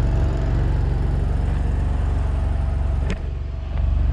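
An engine running steadily at an even speed, with a sharp click or knock about three seconds in.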